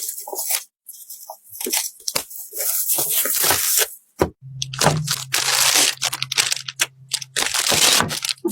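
Close-up crinkling, crunching and clicking of plastic packaging and PC parts being handled during a computer build, in irregular bursts. A low steady hum comes in about halfway through.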